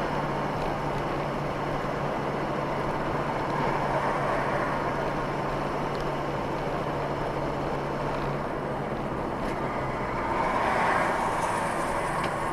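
Steady road noise and engine hum of a moving car, swelling a little about ten seconds in.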